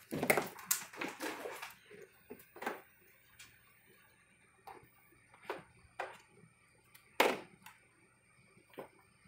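A Java macaque handling a plastic toy sink full of soapy water: a quick run of knocks and taps at first, then single sharp taps every second or so, the loudest about seven seconds in.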